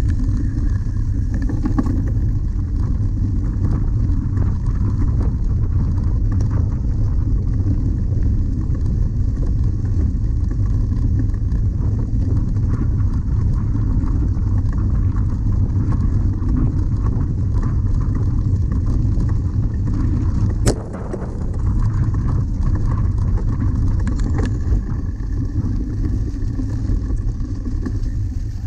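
Steady low rumble of wind and rough riding on a camera carried on a cyclocross bike racing over a bumpy grass course, with one sharp knock about two-thirds of the way through.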